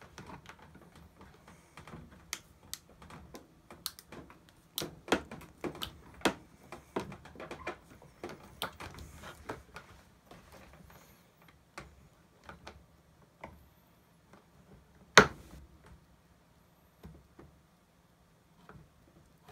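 Utility knife being worked through a scribed cut line in a plastic car door panel: irregular clicks, scrapes and snaps of blade on plastic, busiest in the first half, with one sharp loud crack about 15 seconds in.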